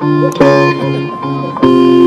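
Live blues-rock band playing, led by an electric guitar ringing out sustained chords. A loud new chord is struck about half a second in, and another near the end.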